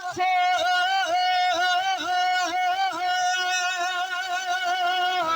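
Devotional kalam music: a male singer holds one long, ornamented note over a quick, regular drum beat.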